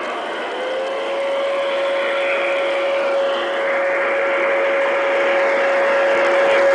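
Aristo-Craft B&O Pacific large-scale model steam locomotive running, growing louder as it approaches, its QSI sound decoder and drive mixing a steady hiss with a steady held tone from about a second in.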